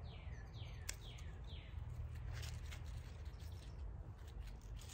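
A songbird gives a run of about four quick falling whistled notes, over a low steady hum. A few faint clicks and rustles come from snipping basil leaves with scissors.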